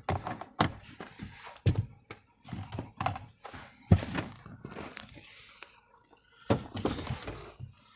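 A series of close handling knocks and thunks with rustling between them, the loudest about four seconds in, as tools and the phone are moved around the Durango's shifter area.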